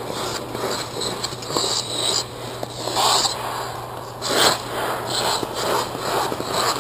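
Ice hockey goaltender's skate blades scraping and carving across the ice in a series of crease pushes, a scrape roughly every second, over a steady low hum.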